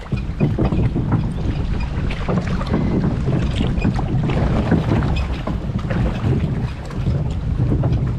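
Water sloshing and splashing around a log flume boat floating along its water channel, with many short irregular splashes and knocks, and wind buffeting the microphone.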